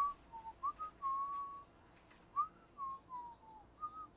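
A man whistling a tune: a run of short notes that rise and fall, with one longer held note about a second in and a falling run of notes near the end.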